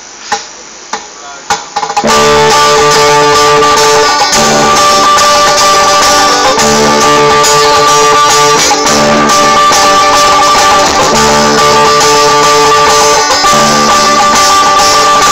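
An acoustic guitar and an electric guitar playing a tune together, loud. They start about two seconds in, after a few light taps.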